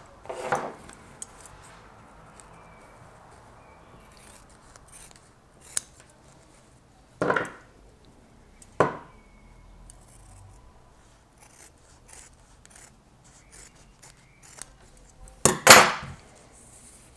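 Kitchen scissors snipping through the nonwoven filter fabric of a vacuum cleaner bag, with the material rustling as it is handled. Tools are set down on the wooden table in a few clacks, the loudest near the end.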